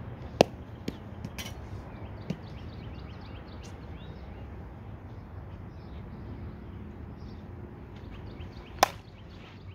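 Two sharp cracks of a softball bat striking the ball, about half a second in and near the end, with a few fainter knocks between. Birds chirp throughout over a steady low rumble.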